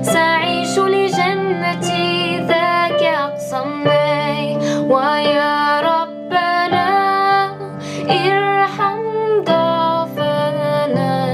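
A woman singing a slow, wavering melody over guitar and sustained low accompaniment.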